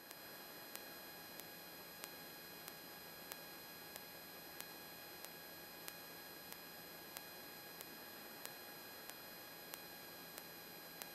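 Faint electrical hiss on an aircraft radio audio feed with no traffic on the frequency, carrying a few thin steady tones and a soft tick about every 0.6 seconds.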